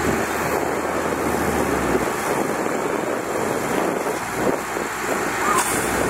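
Diesel engine of heavy earthmoving equipment running steadily.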